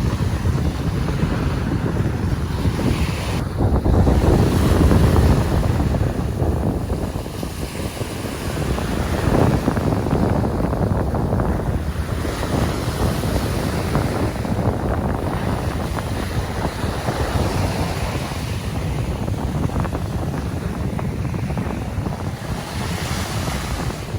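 Ocean surf washing onto a beach, swelling and easing in slow surges, with wind buffeting the microphone.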